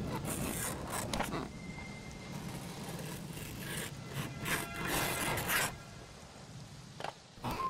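Horror-film soundtrack: a low, dark ambient score with several short scratchy, rasping rubs and scrapes.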